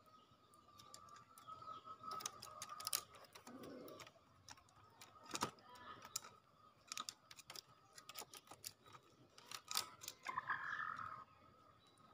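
Irregular sharp clicks and taps, some single and some in quick runs, over a faint steady whine. A short, louder cluster of taps comes near the end.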